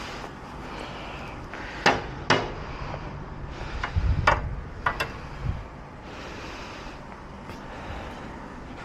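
Clearing a garden by hand, with no power tools: two sharp knocks about two seconds in, then two more with low thumps among them from about four to five and a half seconds, over a steady hiss.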